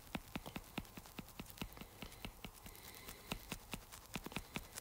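A stylus tip tapping and flicking on an iPad's glass screen in quick short strokes, making light, unevenly spaced clicks about five a second.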